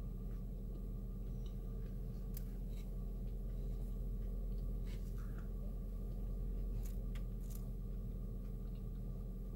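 Steady low hum inside a car, with a few scattered soft clicks and ticks from eating and handling fast-food packaging.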